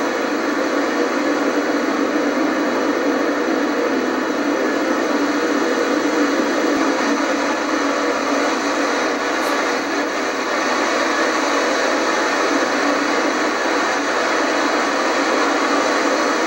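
Steady roar of hurricane-force wind and driving rain, an even rushing noise with no let-up.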